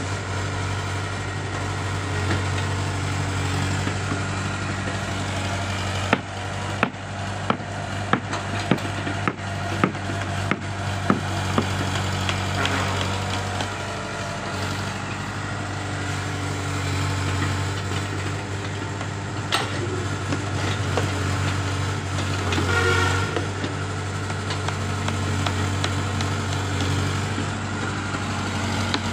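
Komatsu PC60 hydraulic excavator's diesel engine running steadily while it works, with a quick string of sharp knocks and clatters between about six and eleven seconds in as the machine digs through soil and rubble.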